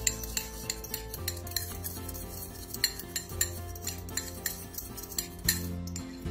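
A metal utensil stirring a melted butter, Italian seasoning and garlic powder mixture in a bowl, clinking repeatedly and unevenly against the sides. Background music plays underneath.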